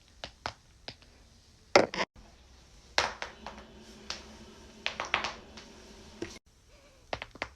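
Joints cracking: a series of sharp pops and cracks, the loudest cluster just before two seconds in and another run of pops from about three to five and a half seconds over a faint steady hum.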